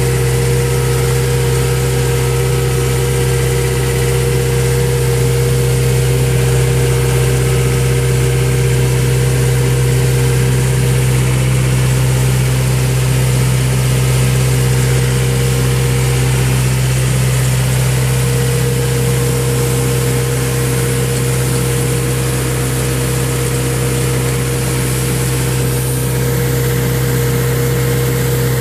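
Farm tractor engine running at a steady, constant speed while working a rear-mounted fertilizer spreader, a continuous even drone.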